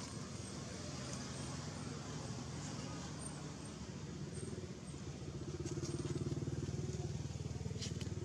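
An engine running steadily, with a low, fast-pulsing hum that grows louder about halfway through.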